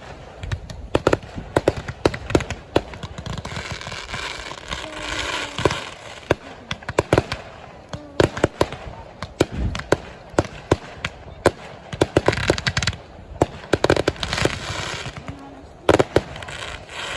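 Aerial fireworks shells bursting in rapid succession, a stream of sharp bangs with stretches of dense crackling in between.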